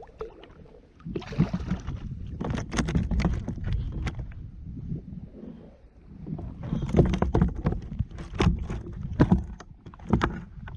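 Knocking, clicking and rustling against a kayak as a freshly caught small snapper is handled and unhooked on board. The clatter comes in two spells, one near the start and a longer one in the second half.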